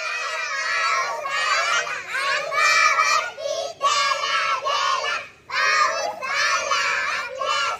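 A group of young girls singing a Marathi rain action song together, in short phrases with brief breaks between them.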